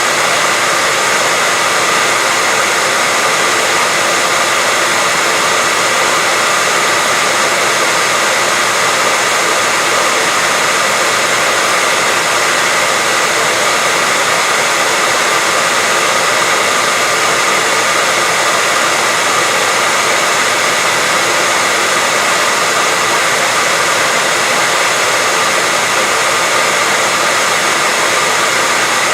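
Continuous white noise: a steady, even hiss weighted toward the high end, with no change in level or pitch.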